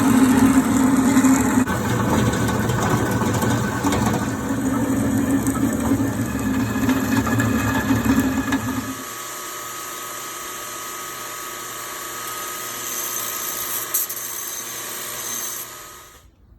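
Power tool cutting through the old steel exhaust-bracket tubing. It runs loudly for about nine seconds, then changes abruptly to a quieter, higher-pitched steady whine that stops shortly before the end.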